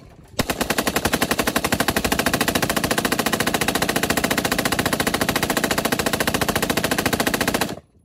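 AR-style rifle with a 100-round drum magazine firing one long, unbroken string of rapid shots, about a dozen a second, into a brick wall. The string stops abruptly near the end as the drum runs empty.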